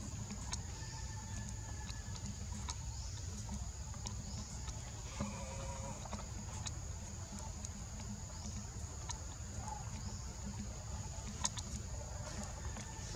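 Outdoor ambience with a steady high-pitched hum and low rumble, scattered faint clicks, and a brief faint animal call about five seconds in.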